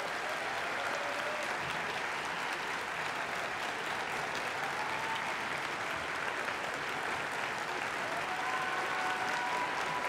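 A large audience applauding steadily after a speech, a dense even clatter of many hands clapping.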